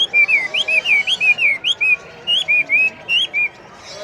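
A bird chirping loudly and close by: a rapid run of short, sliding high chirps, about three or four a second, that stops about three and a half seconds in.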